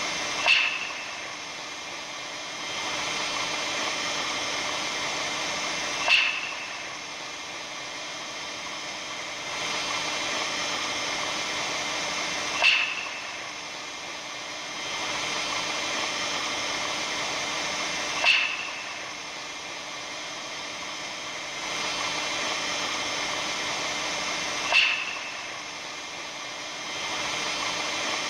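Steady static-like hiss with a sharp crackling pop about every six seconds, five in all, the kind of track offered as the sound of the aurora borealis.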